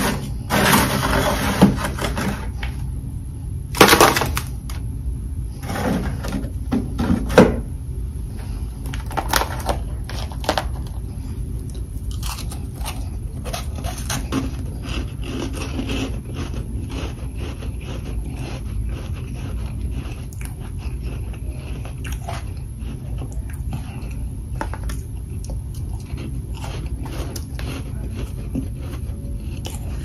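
Soft humidifier freezer frost scraped loose from a freezer shelf with a metal spatula, with a few loud scrapes in the first several seconds. Then chunks of the powdery frost are bitten and chewed: many small, crisp crunches.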